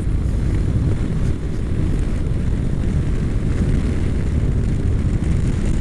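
Honda NC700X parallel-twin motorcycle cruising at a steady pace: an even low engine drone mixed with wind and road noise on the on-board camera's microphone, with no sudden changes.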